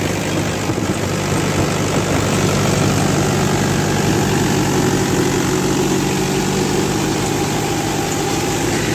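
Mahindra 475 DI tractor's four-cylinder diesel engine running steadily, heard up close.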